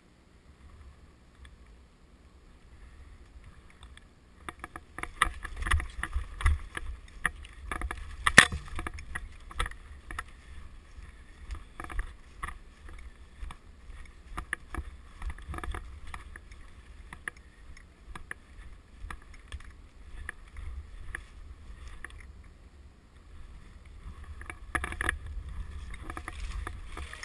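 Rustling and scuffing handling noise from a player moving with the camera, starting about four seconds in, over a low rumble. There are many small clicks and one sharp snap a little after eight seconds.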